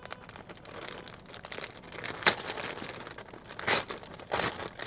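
Clear plastic packaging bag crinkling and rustling as it is handled and pulled open, in irregular crackles, the loudest a little after two seconds and again near the end.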